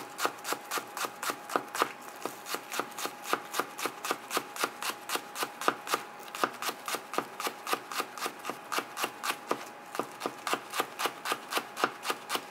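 Kitchen knife finely slicing green onions against a cutting board, in an even run of crisp knocks at about four cuts a second.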